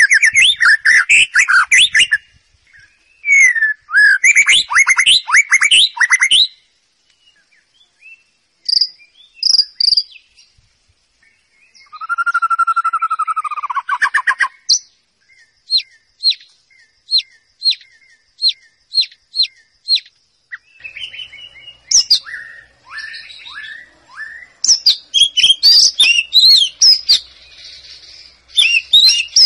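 White-rumped shama singing loud, varied phrases of rapid whistles and trills, separated by short pauses. Around the middle comes a run of about ten sharp, evenly spaced notes, about two a second.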